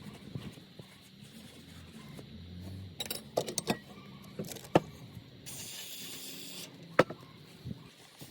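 Small hard parts and tools clicking and knocking against one another on a workbench, a handful of sharp knocks, with a hiss of about a second partway through.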